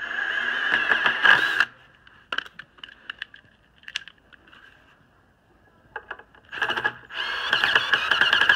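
Ryobi 18V ONE+ cordless drill driving screws into a wooden gate frame: two runs of motor whine, a short one at the start and a longer one near the end, with light clicks and taps of handling between.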